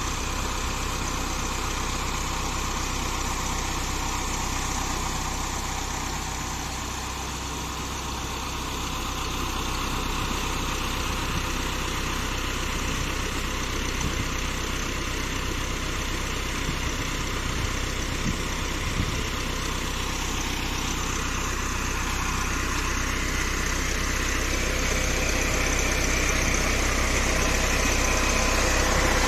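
Massey Ferguson 375 tractor's diesel engine running steadily under load, driving the tubewell pump to lift water.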